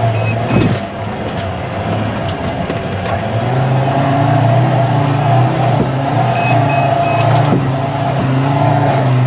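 Troller 4x4's engine working hard in a run up a steep sand dune, growing louder about a third of the way in with its pitch wavering as the revs change. The climb falls short of the top. Short electronic beeps come in quick groups near the start and again about two-thirds through.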